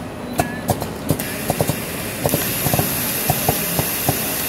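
Automated flashlight tail-cap assembly machine running: a busy, irregular patter of small mechanical clicks and knocks over a steady machine din. A steady high hiss comes in about two seconds in.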